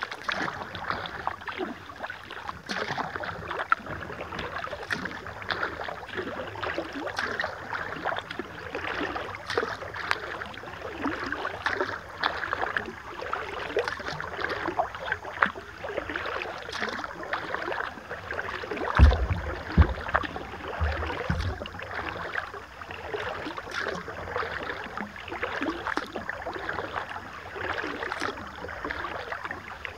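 Kayak paddle strokes on calm river water: a steady wash of splashing and dripping with many small splashes and drips. A few low thumps about two-thirds of the way through.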